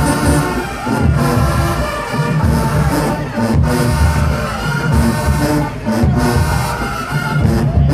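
HBCU marching band playing loudly: brass over repeated low drum and tuba hits.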